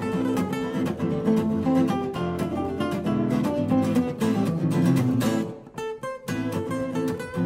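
Jazz guitar duo of an archtop and an acoustic guitar playing together, with quick picked notes over strummed chords. The playing breaks off briefly just before six seconds in and then carries on.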